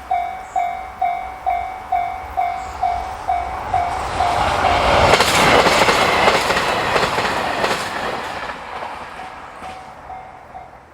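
Japanese level-crossing alarm bell dinging about twice a second as a diesel train passes over the crossing. The train's rumble and wheel clatter build from about four seconds in, peak around five to seven seconds and fade, with the bell heard faintly again near the end.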